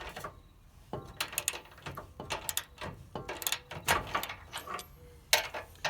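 A 22 mm wrench turning a camber cam bolt on a truck's front suspension arm: irregular metal clicks and knocks of the tool, with a louder knock near the end.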